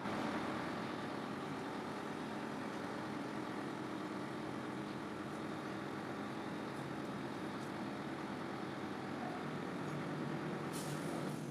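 Diesel engine of a Liebherr LTM 1500-8.1 mobile crane's carrier running steadily as the crane is set up on its outriggers.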